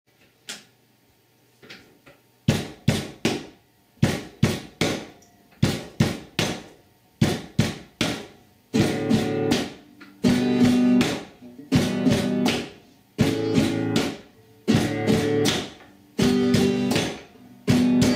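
Classical nylon-string guitar strummed in a rhythmic chord pattern, starting about two and a half seconds in: short choppy strokes in quick groups at first, then fuller chords left to ring in a steady repeating bar.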